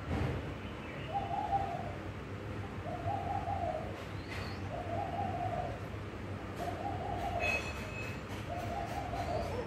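A dove cooing: five even coos about a second and a half apart, each of the same pitch and shape. There is a low thump right at the start.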